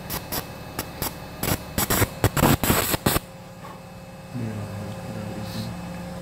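Monopolar electrocautery pencil crackling and hissing against tissue in a quick, irregular run of short bursts over the first three seconds, loudest near the end of the run. Afterwards only a low steady hum.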